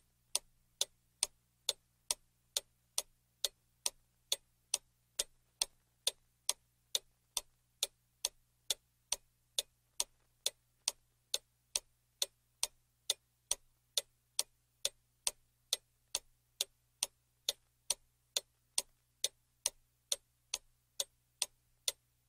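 Clock ticking steadily, about two and a half ticks a second, over a faint low hum.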